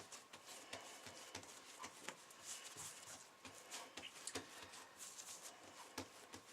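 Faint soft taps and rustles of hands pressing and patting risen yeast dough into a rectangle on a floured countertop.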